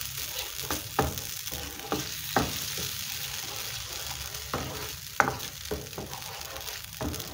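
Wooden spoon stirring a thick tomato-and-yogurt curry base in a frying pan while it sizzles steadily on the heat. The spoon knocks against the pan every second or two, loudest a little after five seconds in.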